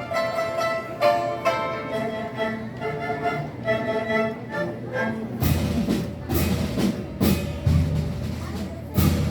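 Chinese traditional orchestra playing a pitched melodic passage of sustained, changing notes. About five seconds in, the percussion comes in with strong, repeated drum and cymbal strikes under the ensemble.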